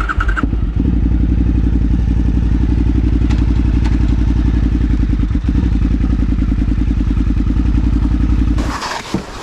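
Motorcycle engine idling steadily close by, a fast even pulse; it starts just after the beginning and stops suddenly near the end.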